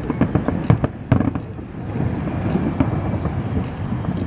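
Aerial fireworks exploding: a quick cluster of sharp bangs and crackles in the first second and a half, then a steady low din with scattered pops.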